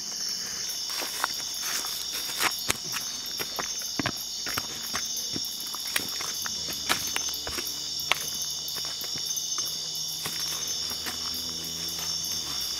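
A steady high-pitched night chorus of insects, with footsteps on stone scattered through it. About halfway in, a faint low hum joins and stops just before the end.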